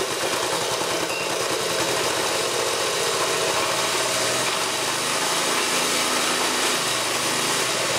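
Small single-cylinder petrol engine running steadily just after starting, chain-driving a Ford car air-conditioning compressor under load.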